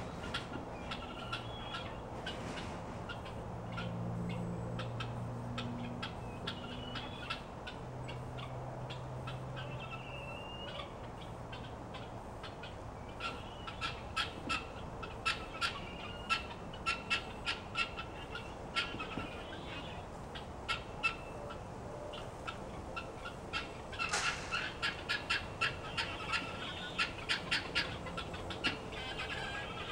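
Guinea fowl calling: harsh, rapid trains of short repeated calls that grow busier about halfway through and are thickest near the end.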